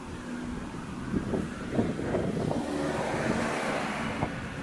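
A car going by on the street, its road noise swelling to a peak around three seconds in and then easing off.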